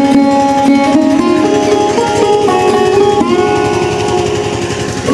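Background music: a melody played on a plucked string instrument, with notes that slide between pitches.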